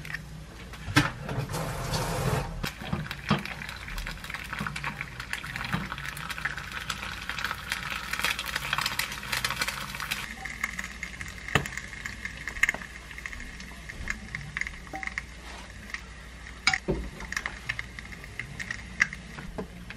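An egg frying in a small pan on a gas stove, sizzling, loudest in the first half, with scattered clicks and knocks. Near the end a spoon scrapes fried rice in a plastic container.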